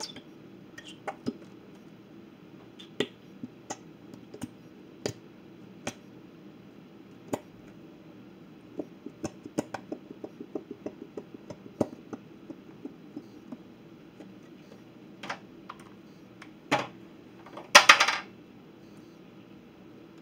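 Light clicks and taps of plastic bottles and a plastic tub being handled, with a quick run of small ticks part way through and a louder clatter near the end.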